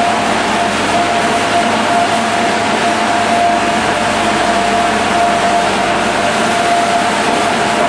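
Olive mill machinery running steadily: a loud, even rush of noise with one steady whine through it.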